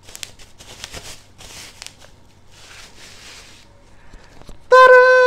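Packaging rustling and crinkling in irregular bursts as a tripod is unwrapped, then near the end a woman's voice holding one long, loud note on a steady pitch.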